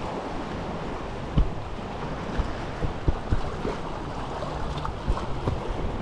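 Small sea waves lapping and washing over shoreline rocks, with wind buffeting the microphone in irregular low thumps.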